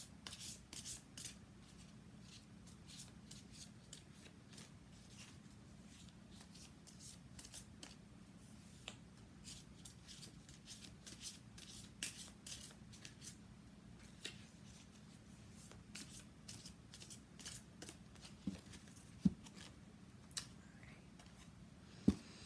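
A tarot deck being shuffled by hand: a long run of faint, soft card clicks, with a few sharper knocks near the end, over a low steady hum.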